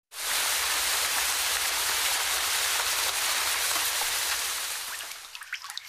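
Steady heavy rain that dies away about five seconds in, leaving a few scattered drips.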